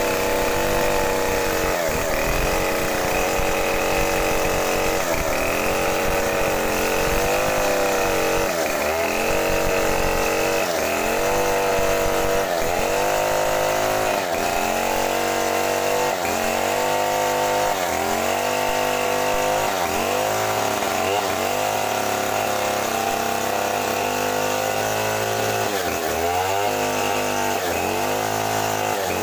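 Gasoline two-stroke chainsaw ripping lengthwise through a mahogany plank. The engine runs hard under load, its pitch dipping and recovering again and again as the chain bogs in the cut, more often near the end.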